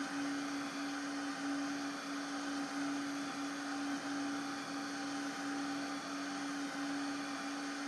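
FlyingBear Ghost 6 CoreXY 3D printer running: a steady whir of its fans over a constant hum, broken by small regular blips about every two-thirds of a second.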